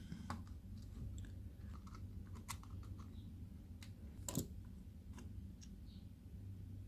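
Faint, scattered clicks and taps of small plastic parts being handled and pried at while a cordless screwdriver is opened up, with one louder click about four and a half seconds in.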